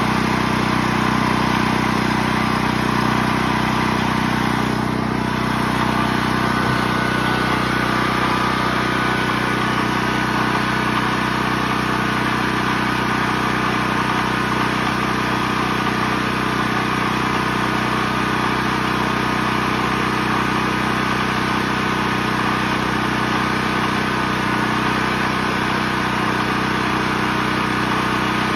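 New portable gasoline generator engine running steadily at constant speed on its first start.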